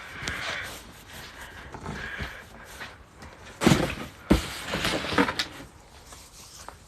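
A few knocks and thumps, with rustling, from things being moved and set down. The loudest come in a cluster about four to five seconds in.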